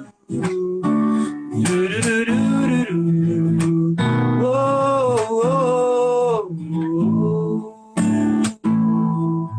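Acoustic guitar strummed and picked through the closing bars of a hymn, with a wordless vocal melody hummed over the chords twice.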